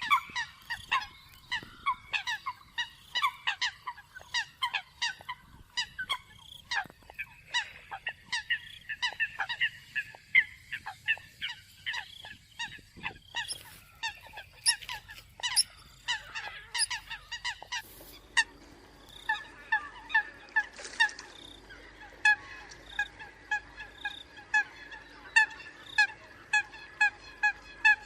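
Eurasian coots calling, a lure-call recording: many short, sharp honking calls come in quick, overlapping succession. From about two-thirds of the way through, they settle into an even run of about two calls a second.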